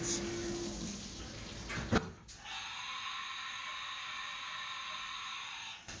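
Flood coolant spraying and splashing inside a CNC mill's enclosure while it drills locating holes. A sharp click about two seconds in, after which a steady high hiss carries on.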